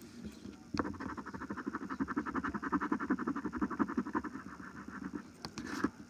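Metal coin scratching the latex coating off a paper lottery scratch-off ticket in rapid back-and-forth strokes, starting about a second in and stopping a little before the end, then a couple of light ticks as the coin is lifted and set down.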